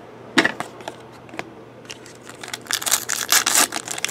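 A single sharp tap about half a second in, then handling sounds building to the dense crinkling and tearing of a foil trading-card pack being ripped open near the end.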